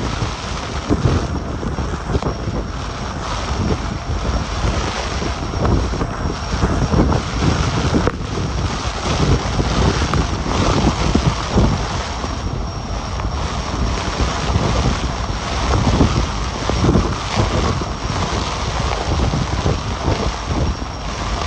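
Severe thunderstorm microburst winds driving heavy rain. Strong gusts buffet the microphone in rough, uneven surges over a steady hiss of rain.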